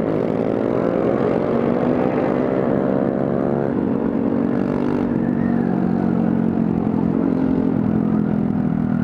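Honda Grom's single-cylinder four-stroke engine running under way, its note rising and falling with the throttle and dropping back about four seconds in.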